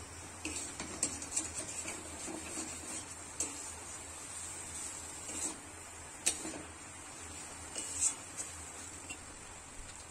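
Metal spatula scraping and tapping against an aluminium kadai as boiled eggs are stirred and fried in thick masala: irregular short scrapes and clicks, a little louder around six and eight seconds in, over a faint steady hiss.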